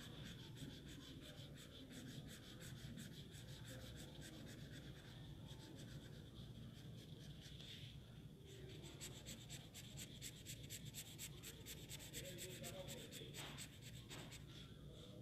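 Purple colouring pen scratching faintly on drawing paper in quick back-and-forth colouring strokes, several a second, over a low steady hum.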